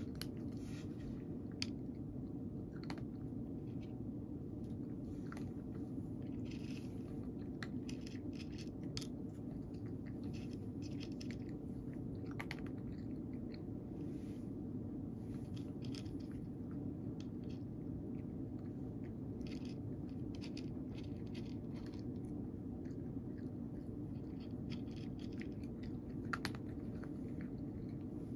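A cat eating dry kibble, with irregular crunching and chewing throughout. A steady low hum runs underneath.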